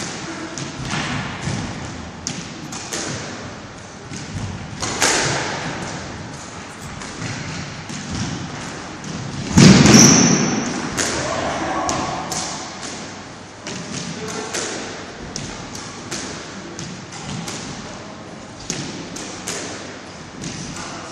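Squash rally: the ball is struck by rackets and smacks against the court walls again and again, with shoes on the wooden floor. There is one much louder bang about ten seconds in.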